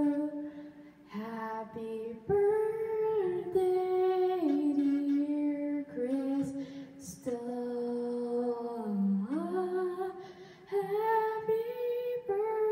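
A girl singing a slow melody alone, holding long notes that step up and down in pitch, with short breaths between phrases.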